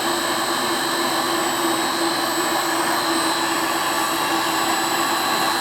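Home-made lathe running steadily at very slow speed: an even machine hum with a steady high whine over it.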